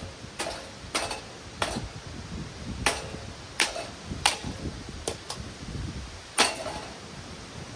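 About ten sharp blows, irregularly spaced, striking a Hunter Summer Breeze ceiling fan at its pull-chain switch housing.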